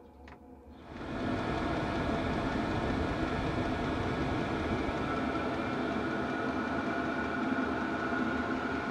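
Chinese diesel air heater running through its start-up: a steady rushing hum of its fan and burner comes up sharply about a second in and then holds, as the heater fires up to temperature.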